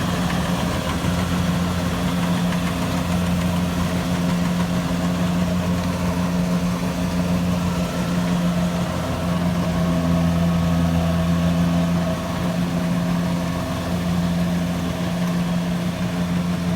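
An engine running steadily at constant speed, with an even low hum.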